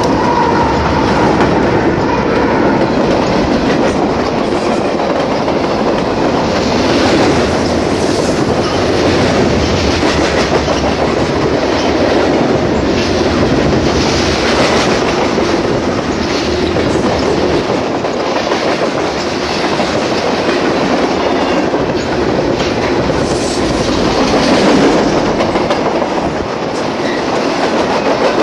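Freight train passing close by at speed: a steady rumble and rattle of the cars, with the steel wheels clicking repeatedly over the rail joints.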